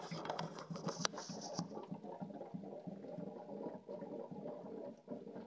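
Filled water tank of a household air humidifier gurgling and glugging steadily as water runs out of the upturned tank into the base and air bubbles up into it, with a sharp click about a second in.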